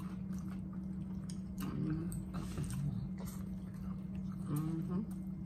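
Chewing and mouth clicks of people eating fried catfish, with two short pitched 'mm' hums of enjoyment, about two seconds in and near the end, over a steady low hum.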